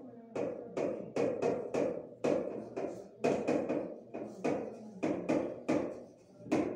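A quick, uneven run of sharp taps, about two or three a second, each ringing briefly.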